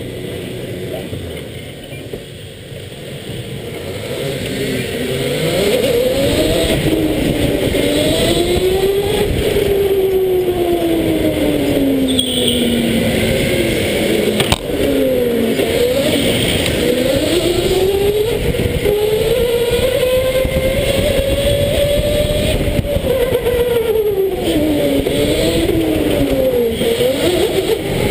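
Indoor rental electric go-karts racing, heard from on board: the motor whine rises and falls in pitch as the kart speeds up along the straights and slows into the corners. The whines of other karts nearby cross it, over a steady tyre and chassis rumble. The whine swells after the first few seconds, and there is a single sharp click about halfway through.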